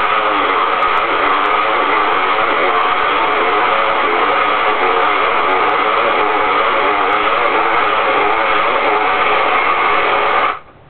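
Hand-cranked toy ice cream maker being churned: a steady, loud grinding of its gears and the crushed ice inside, which cuts off suddenly near the end.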